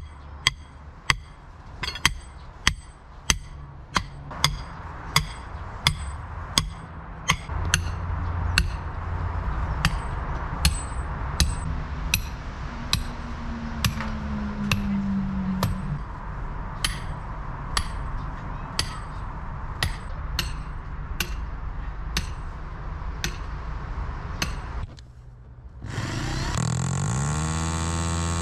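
Hammer striking a steel rod being driven into the soil, about one and a half blows a second, the blows growing sparser and less even later. Near the end a rotary hammer drill starts up, its motor rising in pitch.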